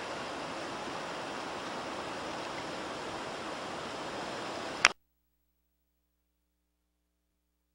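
Steady even hiss of background noise on an outdoor recording. A little under five seconds in it ends with one sharp click, and then there is silence.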